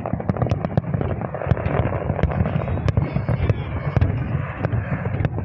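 Fireworks display: aerial shells bursting one after another, several bangs a second over a continuous low rumble.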